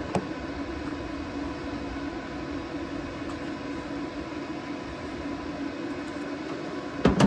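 Steady fan-like machine hum in a welding shop, a low drone with a faint steady whine over it. A short loud knock comes near the end.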